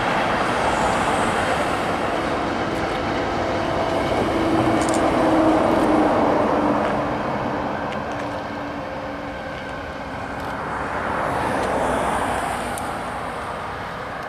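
Passing vehicle noise, a steady rumble that swells about five seconds in and again near twelve seconds.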